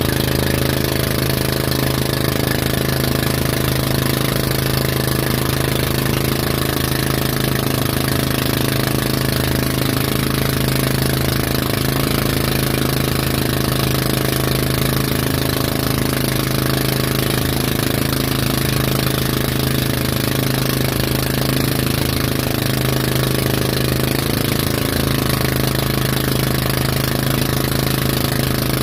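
Tow boat's engine running steadily at a constant pace, a strong low hum that does not change, over a steady rush of wake and wind noise.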